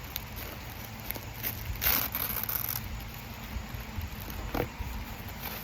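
Packaging being handled during an unboxing: scattered light clicks and scrapes of box and wrapping, with one louder rustle about two seconds in.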